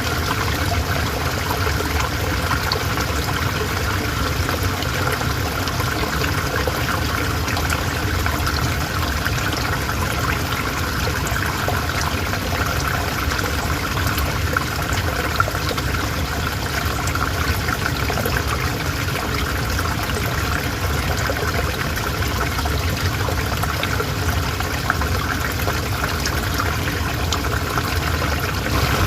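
River water flowing steadily, a constant rushing and trickling with many small splashes.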